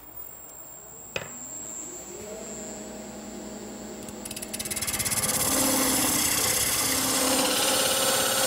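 Wood lathe running with a wooden bat blank spinning, then about halfway through a parting tool bites into the knob end and a loud, steady cutting noise takes over. The parting tool is cutting a groove down to the knob's caliper-set diameter as a sizing guide.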